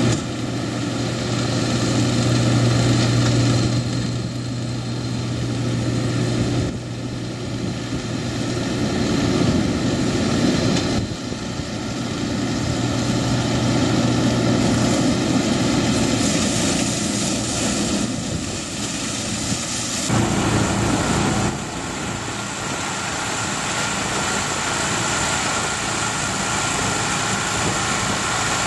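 Yanmar YWH1400A combine baler's diesel engine and threshing gear running steadily under load while it cuts and bales forage rice, a continuous drone with a strong low hum. About twenty seconds in the sound changes abruptly to a different steady engine sound.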